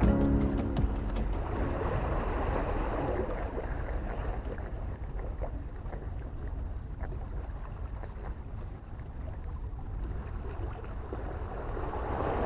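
Wind buffeting the microphone over the wash of the sea on breakwater rocks: a noisy rumble that eases a little in the middle and builds again near the end.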